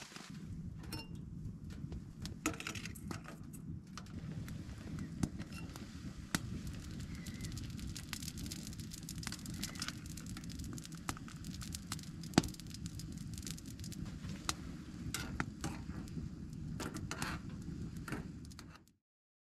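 Wood fire crackling and ticking in a small metal tent stove over a steady low rush, with light clinks of a metal spoon against a metal pot of steaming snow-water on the stove top. The sound cuts off abruptly near the end.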